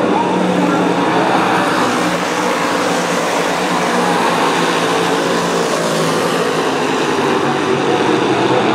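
A pack of dirt-track modified race cars running at speed around the oval, their V8 engines blending into one loud, steady sound.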